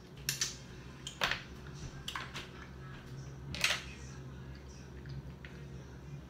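Eating a seafood boil by hand: about five short, sharp cracks and smacks from picking at shellfish and eating. The loudest comes between three and four seconds in. A steady low hum runs underneath.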